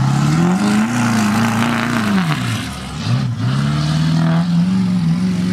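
Lifted Ford Super Duty pickup's engine revving as its rear wheels spin on grass while it does donuts. The revs climb, drop away about two and a half seconds in, then hold steady.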